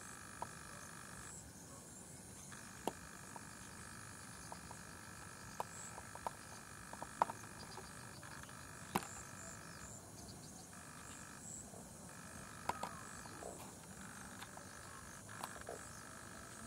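Faint dusk chorus of frogs and insects: a continuous high trill with a lower chorus under it that breaks off for about a second at a time, several times, and starts up again. Scattered sharp clicks and taps cut through it, the loudest about seven and nine seconds in.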